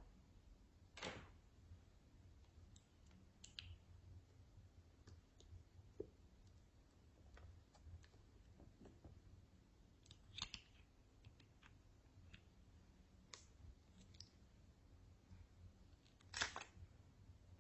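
Near silence with faint, scattered clicks and sticky squishes, about half a dozen, the kind made by slime being mixed and pressed by hand.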